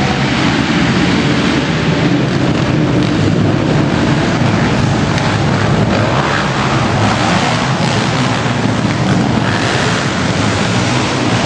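Engines of a row of racing quads, 250s and 450s, running together on the starting line: a loud, steady mass of engine noise.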